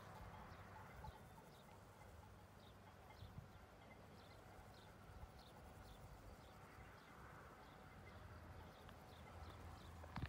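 Faint outdoor ambience: a low rumble under a series of short, high chirps, about two a second. A sharp tap near the end is the loudest sound.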